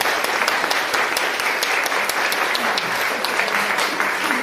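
A large audience applauding, many hands clapping at a steady level.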